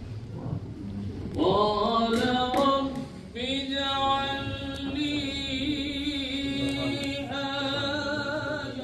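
A man's solo chant in long, ornamented held notes, breaking once for a breath about three seconds in before carrying on.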